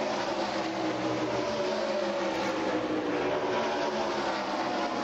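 NASCAR stock cars' V8 engines at racing speed as cars go past on the straight, the engine notes sliding down in pitch as they pass.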